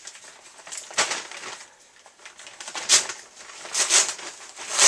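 A mailing package being ripped open by hand: about four short, crunchy tearing rips, the last ones the loudest.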